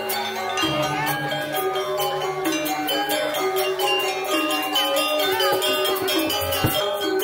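Balinese gamelan playing: bronze metallophones ring out a melody in stepping held notes over rapid, regular cymbal clashes.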